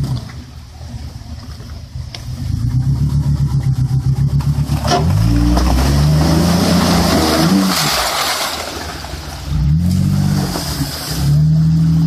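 Lifted Jeep's engine revving hard under load while climbing an iced rock ledge in a creek, with tyres spinning and throwing water. The engine note pulses, rises sharply about five seconds in, and swells up and back down again near ten seconds.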